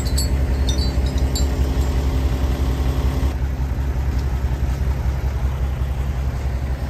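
Heavy diesel engine running steadily at low revs, a deep pulsing throb, with a few short clicks in the first second and a half.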